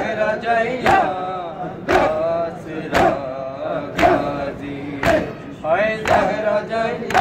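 A group of men chanting a Punjabi noha, a Shia lament, in unison. Rhythmic chest-beating (matam) keeps time, one sharp slap about every second, on the beat of the chant.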